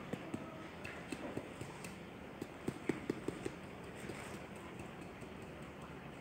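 A moulder's flat hand trowel tapping and smoothing the surface of rammed moulding sand: a series of light, irregular taps, with a quick run of louder ones around the middle.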